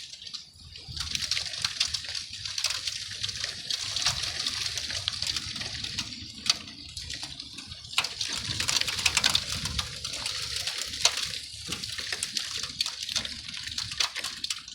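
Snow mixed with ice pellets falling: a steady hiss full of fine, rapid ticks, with a few sharper clicks.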